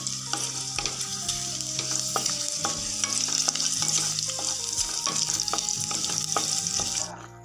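Green chillies, dried red chillies and curry leaves sizzling in hot oil in a nonstick pan as a wooden spatula stirs them, with scattered small pops. The sizzle cuts off suddenly about seven seconds in.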